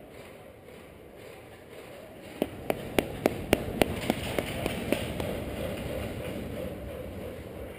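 About ten sharp taps in an even rhythm, roughly four a second, starting a little over two seconds in and fading out, over the steady background noise of an ice rink.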